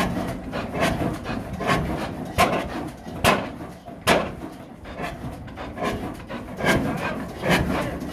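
Vintage horizontal single-cylinder stationary engine with a large flywheel running slowly, with a sharp beat roughly every 0.8 s over a steady low rumble.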